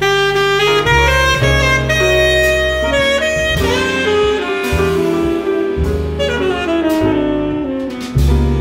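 Tenor saxophone playing the lead melody in a live jazz quartet, with double bass and piano behind it. The saxophone comes in right at the start, noticeably louder than what went before.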